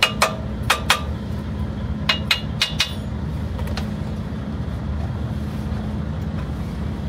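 A hammer tapping the steel suspension and axle fittings of a rally truck, struck eight times in quick pairs over the first three seconds, each strike ringing briefly. The taps test each fitting for tightness: a solid ring like plain metal means it is tight, a tinnier, rattling sound means it is loose. A steady low hum runs underneath.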